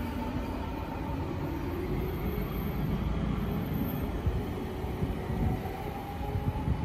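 Odakyu electric commuter train pulling out and accelerating away: a steady rumble of wheels on the rails, with a faint motor whine rising in pitch near the end.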